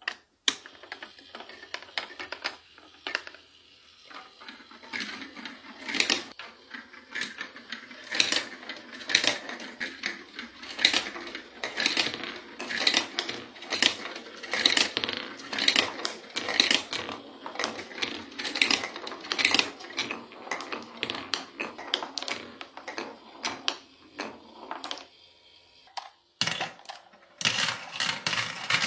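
Marbles clattering down a plastic marble-run track: a dense, irregular stream of sharp clicks and rattles, briefly dropping off about three seconds before the end before picking up again.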